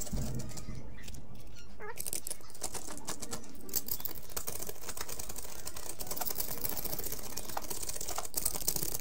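Razor blade scraping and cutting at the edge of a hole in a plaster ceiling: fast, scratchy clicking strokes against the plaster, with a short lull about a second in.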